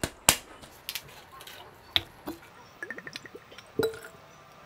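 Gin poured from a glass bottle into a steel jigger and tipped into a highball glass over lime wedges: scattered clicks and clinks of glass and metal, a short trickle of liquid and a quick run of small ticks about three seconds in.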